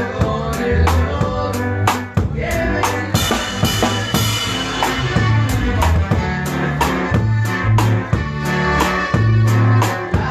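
Live norteño band playing an instrumental passage: a drum kit keeps a steady beat with snare and bass drum under a bass line, with a cymbal crash about three seconds in.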